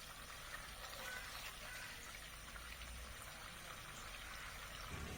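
Pieces of marinated chicken sizzling in hot oil in a pan as they are seared, a faint steady hiss with a few small ticks.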